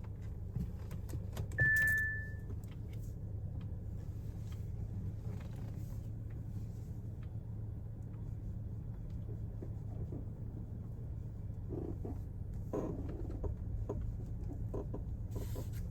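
Audi A4 B9 with a steady low engine hum, over which come scattered short creaks and squeaks: the squeak the car makes when turning, parking or going over bumps. A brief high steady squeal near two seconds is the loudest sound, and a longer creak falls in pitch a little past halfway.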